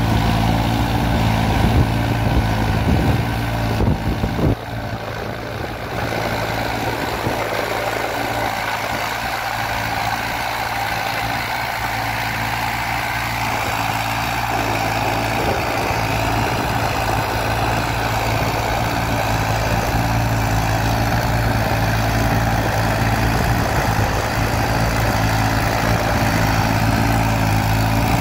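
New Holland 3630 tractor's three-cylinder diesel engine running steadily under load, pulling a tine cultivator through dry soil. The level dips briefly about four seconds in.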